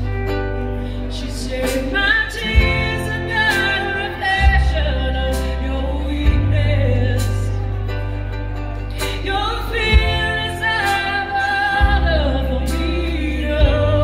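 Live amplified band playing a slow song: a woman sings two phrases over bass guitar and guitars, with the bass line changing note every couple of seconds.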